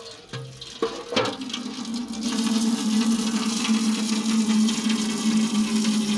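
Tap water running in a thin stream into a shallow metal pan, splashing steadily with a low ring from the metal; two knocks about a second in as the pan is set down on the concrete floor. The splashing gets louder over the first two seconds, then holds steady.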